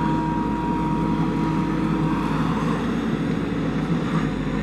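JCB backhoe loader's diesel engine running steadily under work, with a thin steady whine that fades out about two seconds in.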